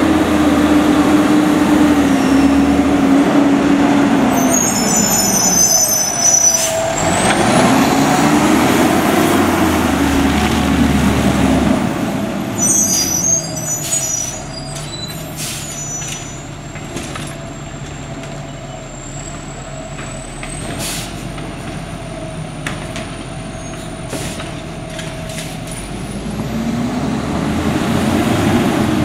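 Heil CP Python automated side-loader garbage truck's diesel engine revving up and down as it drives in and slows, with high squeals and air-brake hisses as it comes to a stop about halfway through. It then idles more quietly with scattered clicks and a faint high whine, and the engine revs up again near the end.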